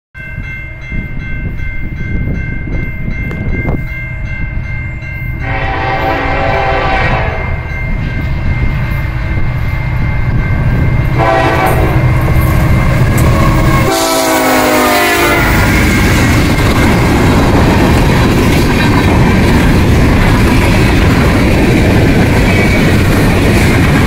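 A CN diesel freight locomotive's horn sounds three blasts, the last falling in pitch as the locomotive passes close by. The double-headed locomotives and freight cars then rumble and clatter past. Before the horn, steady high ringing tones sound, likely the grade-crossing warning bell.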